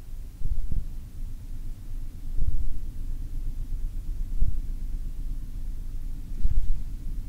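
Low rumbling drone from a horror film's sound design, with a deep thud about every two seconds.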